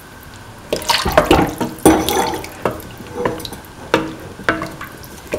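A metal spatula stirring diced winter melon and peas in water in a metal pan: irregular clinks and scrapes against the pan, some briefly ringing, with water sloshing.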